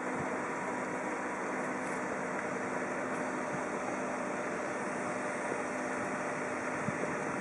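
A steady mechanical hum with a few faint held tones over an even background hiss, without any distinct knocks or changes.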